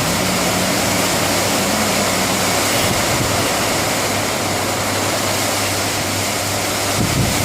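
Heavy rain falling, a steady dense hiss, with a faint low hum underneath. Near the end, wind starts buffeting the microphone.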